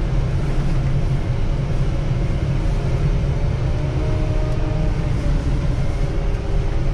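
John Deere 324K compact wheel loader's diesel engine running steadily as the loader drives, heard from inside the cab: a constant low rumble with a faint droning whine over it.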